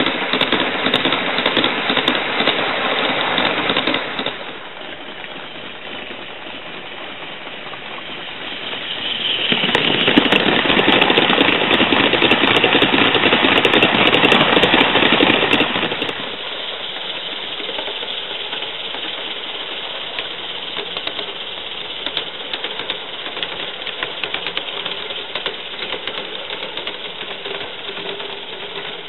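Gauge 1 live steam train, Accucraft East Broad Top #12 2-8-2 with a long string of hopper cars, running past, its wheels making a rapid, continuous clatter on the track. The clatter is loudest for several seconds about a third of the way in, as the cars roll close by, and then settles to a steady, quieter rattle as the locomotive comes through.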